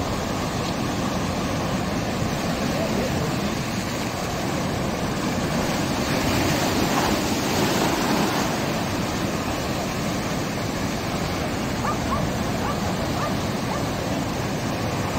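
Ocean surf breaking and washing over and between shoreline rocks: a steady rush of water that swells a little about halfway through.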